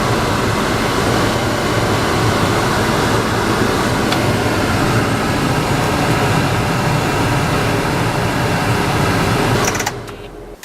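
Steady rush of air from a motor-driven blower running at constant speed, cutting off about a second before the end.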